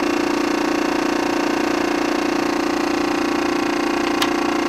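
Small electric air compressor switched on, starting abruptly and running with a steady hum as it pumps air into a 2-liter bottle to pressurize it.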